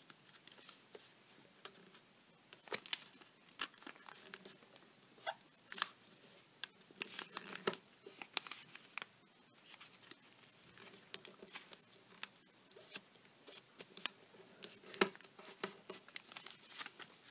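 A sheet of origami paper being folded and creased by hand, with irregular paper crinkles and sharp little crackles as an edge is folded over to a crease and pressed flat.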